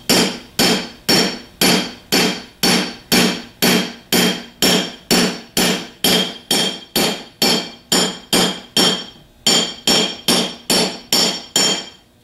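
Hammer tapping on a 3/8 extension used as a driver, seating a new bushing into the nose housing of a 42MT starter. A steady run of ringing metallic taps, about two a second, stops just before the end.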